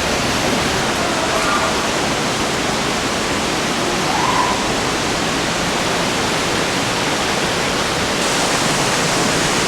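Water rushing down a waterfall, a steady, loud rush of falling water.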